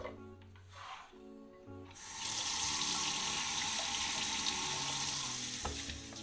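Kitchen tap running, water pouring onto raw mutton pieces in a stainless steel mesh colander in the sink. It starts about two seconds in, runs as a steady hiss, and stops shortly before the end.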